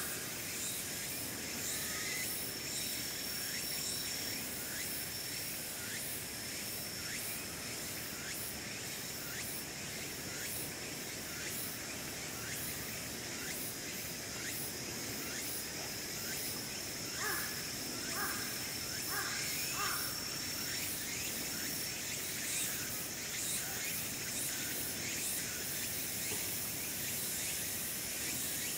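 Outdoor ambience with a thin, steady, high-pitched insect drone, and a crow cawing several times in quick succession about two-thirds of the way through.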